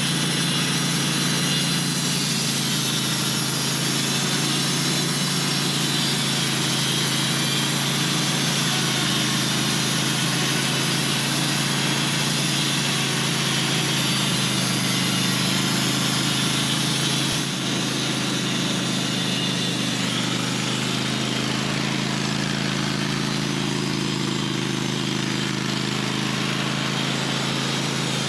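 Band sawmill running steadily, its engine holding a constant note while the blade cuts through a large honey locust log.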